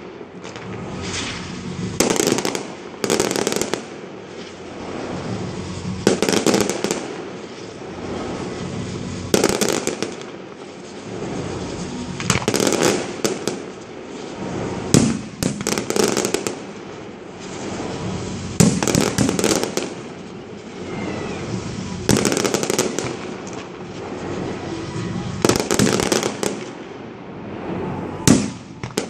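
Aerial firework shells bursting in a display: a sharp bang every one to three seconds, with steady noise between the bursts.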